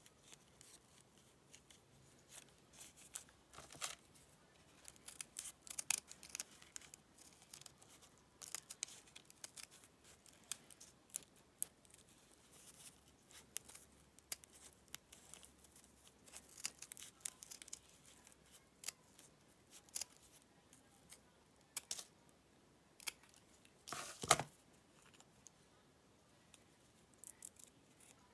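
Scissors snipping fabric in short, irregular cuts, with fabric and paper scraps rustling as pieces are handled; the loudest rustle comes near the end.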